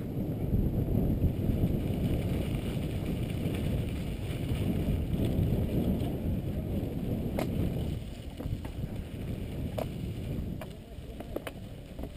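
Wind buffeting an action camera's microphone as a mountain bike rolls along a dirt road, with tyre rumble underneath. The wind noise is heavy at first and eases about 8 seconds in. In the second half a few sharp clicks and rattles come from the bike jolting over the rough surface.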